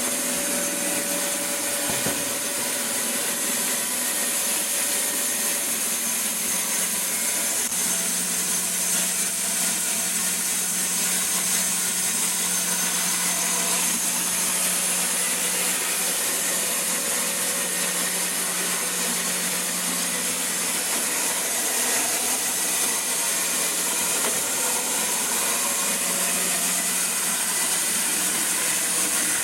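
LDA-300 band resaw running and sawing wood: a steady hiss with an even hum underneath, unchanging throughout.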